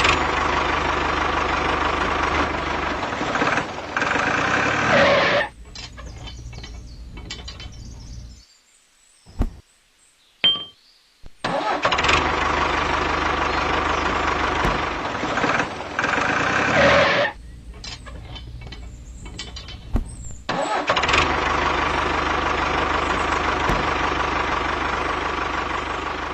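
A motor running steadily in three long stretches, each cut off abruptly, with quieter gaps between and a near-silent break about a third of the way in.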